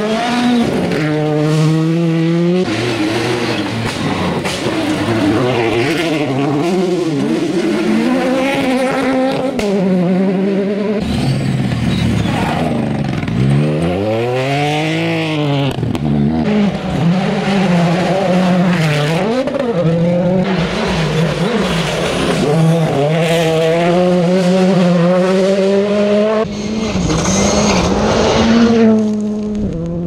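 Rally cars driven flat out on a gravel stage. Their engines rev hard and step through gear changes, and one passes close around the middle with a rising then falling pitch. Gravel sprays under the tyres.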